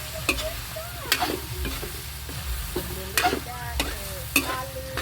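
Pork and vegetables stir-frying in a hot wok: a steady sizzle broken by sharp, irregular clinks and scrapes as the utensil strikes and tosses the food against the wok.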